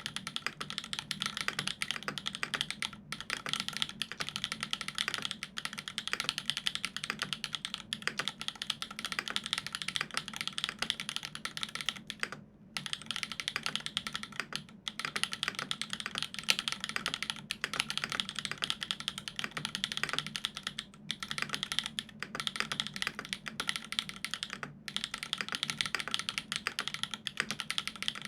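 Continuous fast typing on a Dolumina65 mechanical keyboard with lubed Everglide Dark Jade Black switches on an aluminium plate and GMK keycaps, a dense stream of keystrokes with brief pauses twice. A faint steady low hum sits underneath.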